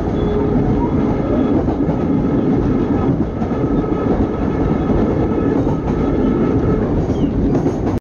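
Electric multiple unit (EMU) train late in its acceleration to about 95 km/h, running with a loud, steady rumble and faint level tones above it.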